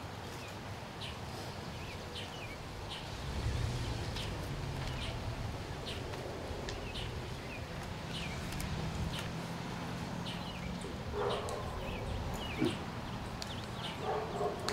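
Birds chirping over and over in short, falling chirps, over a low steady hum that comes in a few seconds in and fades near the end.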